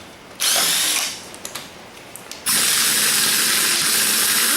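Impact wrench running in two bursts, a short one about half a second in and a longer steady run starting about two and a half seconds in, loosening bolts on an engine being torn down.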